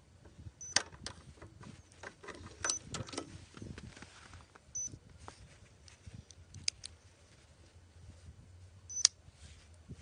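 Zinc-alloy fingerprint padlock being unlocked and handled: a series of sharp metallic clicks from the shackle and lock body, among light handling rustle. The loudest clicks come about a second in and again near the end.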